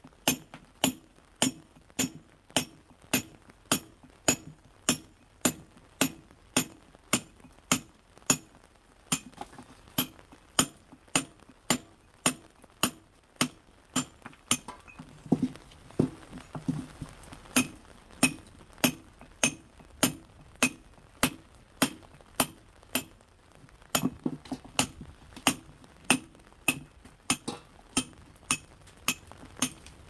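Hand hammer striking a steel punch held against a stone block, in even blows about two a second with a short metallic ring on each. The blows pause briefly about halfway through, then carry on. This is a stone being dressed to a punched face.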